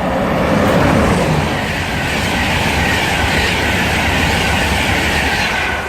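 InterCity 225 (Class 91 electric locomotive with a driving van trailer) running through the station at speed: a loud, steady rush of wheel and air noise that swells over the first second and holds, with a high hiss, until it falls away near the end.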